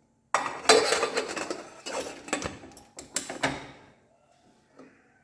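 A burst of rapid, irregular clattering and knocking that starts suddenly and dies away after about three and a half seconds.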